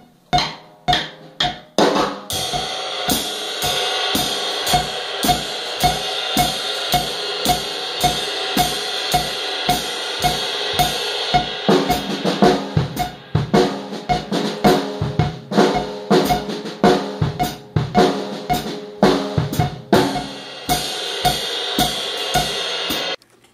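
Acoustic drum kit played with sticks: a steady groove of snare and bass drum strokes under a washing cymbal. The pattern changes about halfway through, the cymbal comes back near the end, and the playing cuts off suddenly just before the end.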